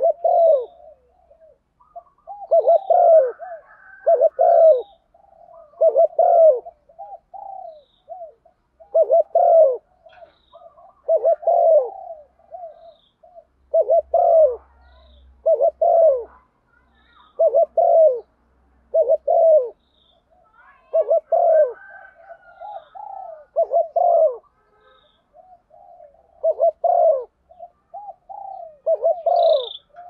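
Spotted dove cooing: a long series of low coos, mostly in pairs every two or three seconds. It is a hen's call, used as a lure to set males calling.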